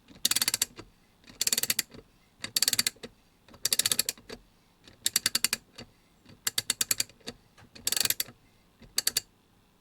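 MAC Tools XR8PA 3/8-inch drive, 30-tooth single-pawl ratchet handle being swung back and forth. Each stroke gives a quick run of separate clicks from the pawl over the gear, about eight strokes roughly a second apart, stopping shortly before the end.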